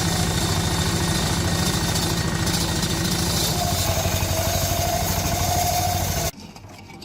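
D12 single-cylinder diesel engine running with a steady, evenly pulsing beat; a faint steady whine joins past the middle, and the sound cuts off suddenly near the end.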